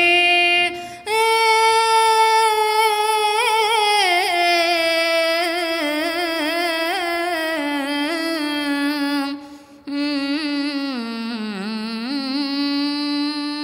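A single voice singing a long, drawn-out melodic phrase of chanted Tamil devotional verse, with held notes that slide and waver in ornaments, and two short breaths, about a second in and again around ten seconds in.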